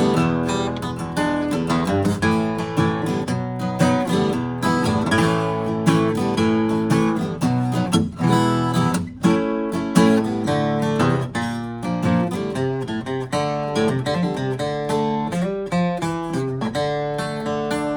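A 2000 Gibson J-45 steel-string acoustic guitar is played solo, with chords strummed and picked and many quick note attacks.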